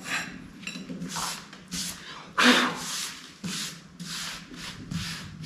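Putty knife, then bare hand, scraping and rubbing across an elm board in short repeated strokes, about two a second; the loudest stroke comes a little under halfway through.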